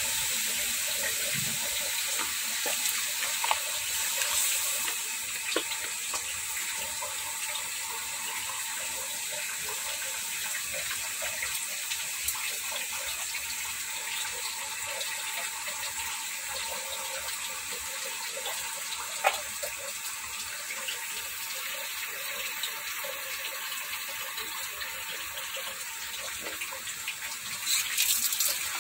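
Coconut milk simmering around tilapia and eggplant in a pot: a steady bubbling hiss with small pops, louder and busier near the end.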